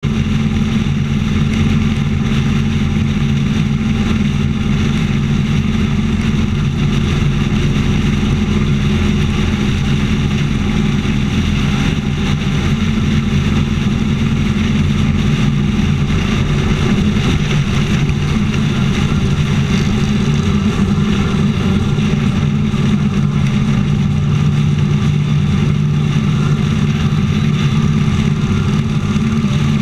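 Motorcycle engine running steadily at highway cruising speed, heard from a camera mounted on the bike, with wind and road noise over it.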